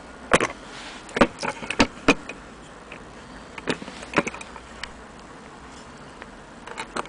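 Metal parts of a gramophone tone arm and its bracket clicking and knocking together as they are handled: a scatter of sharp clicks, several in the first two seconds, a couple around four seconds and two more near the end.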